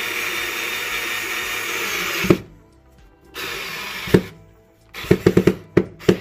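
Hart cordless screwdriver running steadily as it drives a screw into wood, stopping abruptly a little over two seconds in. A shorter run ending in a sharp click follows, then a quick series of short clicks as the screw is driven home and buried.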